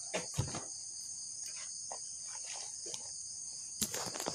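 Steady high-pitched insect chorus, with a few short knocks and rustles from the phone being handled, a pair near the start and a cluster near the end.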